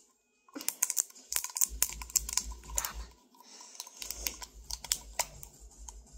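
Rapid, irregular small clicks and taps, with a few dull bumps, from a plastic dye container being handled as coloring is added to white glue in a bowl. The clicks start about half a second in.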